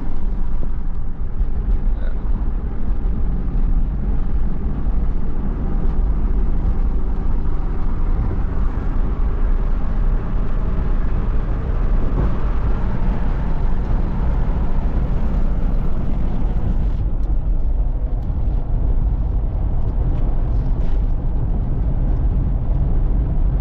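Cabin noise of a truck driving on the highway: a steady low engine and tyre rumble with wind and road noise.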